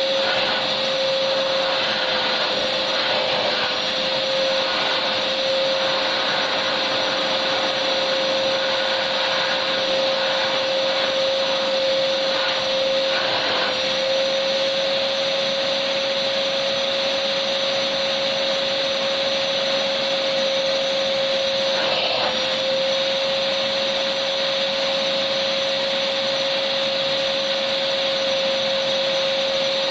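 Electric vacuum cleaner running steadily, with a constant motor whine over the rush of air, used as white noise for sleep.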